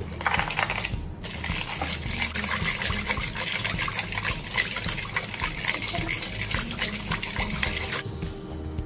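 Ice cubes tipped into a steel bowl of mint lassi, then a wire whisk beating the yogurt drink with the ice in it: a fast, wet sloshing with many quick knocks, stopping suddenly about eight seconds in.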